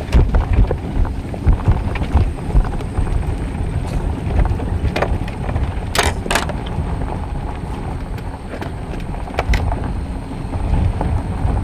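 Boat on a trailer being towed along a gravel road: a continuous low rumble with scattered rattles and clacks, and two sharp clacks close together about six seconds in.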